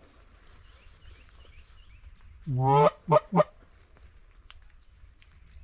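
Canada goose call blown by a hunter: one long rising honk followed by two short, sharp clucks about two and a half seconds in. Faint distant goose calls come in between.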